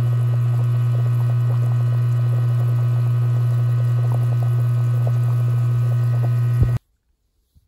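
Loud steady low electrical hum over a pot of whole chicken boiling, with faint small pops from the bubbling. It cuts off suddenly near the end.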